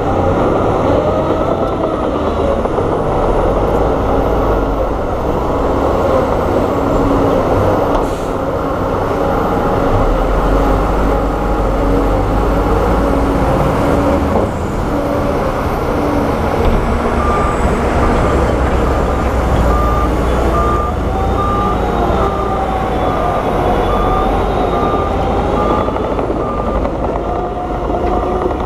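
Heavy diesel construction machinery, bulldozer and dump truck engines, running under load with the pitch rising and falling as they work. A steady repeating beep sounds through the second half.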